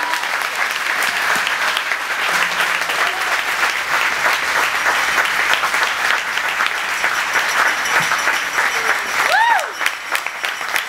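Audience applauding steadily, with voices mixed in. Near the end comes a brief rising-and-falling call, and then the clapping thins out.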